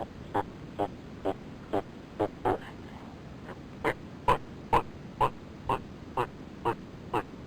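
An animal giving a series of short, sharp calls, about two a second, with a pause of about a second partway through.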